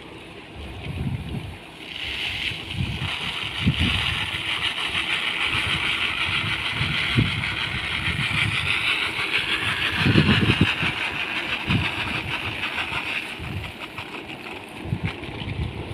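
Paddy grain poured from a basket into a solar-powered thresher-cum-winnower: a steady hiss of grain running into the machine, rising about two seconds in and dying away about three seconds before the end, over irregular low thumps.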